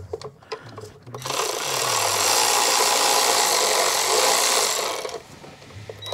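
Cordless electric ratchet running steadily for about four seconds as it spins out an E8 Torx bolt from the timing belt cover, with a few light clicks before the motor starts.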